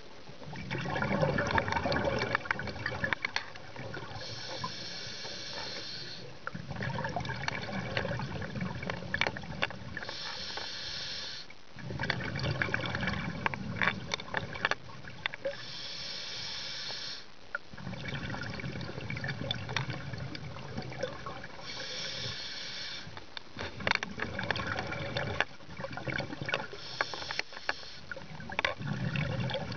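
Scuba regulator breathing underwater, five breaths about six seconds apart. Each breath is a short hiss on the inhale, then a longer crackling gurgle of exhaust bubbles on the exhale.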